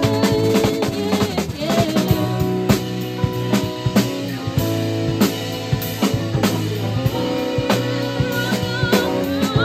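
Live psychedelic jazz band playing: a drum kit keeps a busy beat under electric guitar and long held melody notes.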